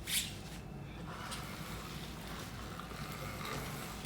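The small motor of a bike running steadily with a low, even drone. There is a short sharp knock right at the start.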